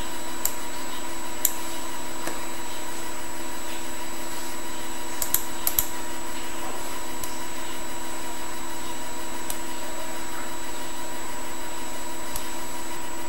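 Steady machine hum from a computer's cooling fan, picked up by the desk microphone: an even whir with several constant tones and hiss. A few short faint clicks scattered through it.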